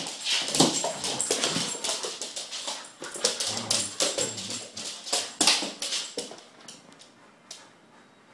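Two dogs play-fighting: growls and snarls mixed with scuffling and scrabbling on a hard floor, in quick irregular bursts that die down about six and a half seconds in.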